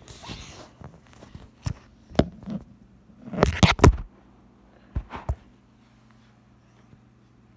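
Close handling noise on a phone: rubbing at the start, then knocks, with a loud rapid cluster about three and a half seconds in and two more knocks about five seconds in. A faint steady low hum runs underneath.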